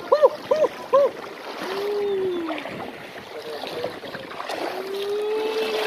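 A shallow river rushing around a person wading through it. Over the water come the voice sounds of the wader, who is shivering in the cold water: four short pitched grunts in the first second, then a falling moan, and from about two-thirds of the way in a long held hum.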